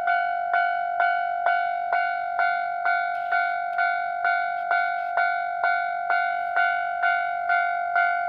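Japanese railway level-crossing warning bell ringing in its steady alternating 'kan-kan' pattern, about two strikes a second, each strike a bright pitched ring that fades before the next.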